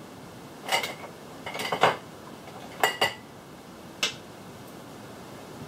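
Small makeup containers and a brush being handled: half a dozen sharp clicks and clinks, some in quick pairs, over the first four seconds, as eye pigment is picked up on a brush.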